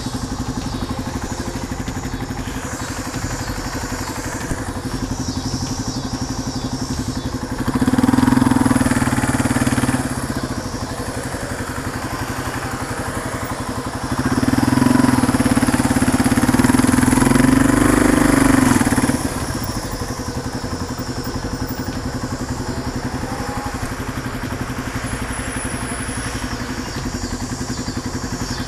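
Motorcycle engine running steadily as the bike rolls along at low speed. It gets louder twice as the throttle is opened: for about two seconds starting about 8 seconds in, and for about five seconds starting about 14 seconds in.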